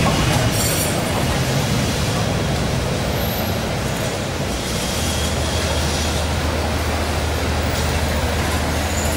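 Street traffic: cars and a diesel minibus moving close by, with a steady low engine hum setting in about halfway through.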